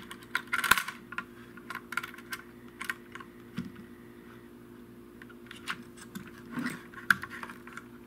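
Sharp clicks and light metallic taps from an LGA 1151 CPU socket's steel retention lever and load plate being unlatched and swung open by hand. The clicks come in small clusters, about a second in, around two to three seconds, and again near the end.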